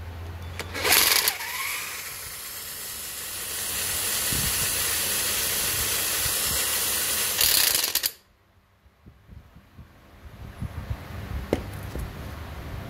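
Hand-held power gun spinning a bench-mounted alternator by its pulley: a steady hissing whir that starts with a loud burst about a second in and cuts off suddenly after about eight seconds, followed by a few faint clicks. The gun turns the alternator at a slow RPM, too slow to raise its output voltage much.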